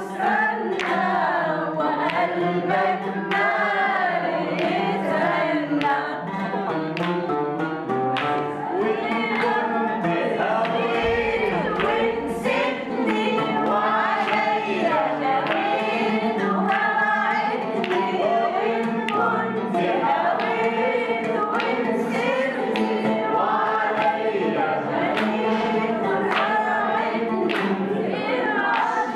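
A mixed group of men and women singing a song together, with a steady beat of sharp strikes under the voices.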